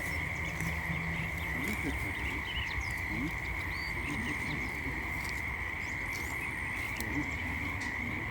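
Frogs calling in a continuous chorus, heard as a steady high drone that holds without a break, with faint short chirps scattered above it.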